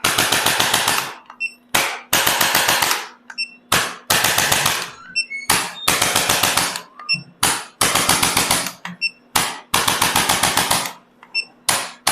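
Rapid machine-like percussion on the body, as from a percussion massager: bursts of very fast, even strikes about a second long, repeating about every two seconds, with a brief burst in each gap.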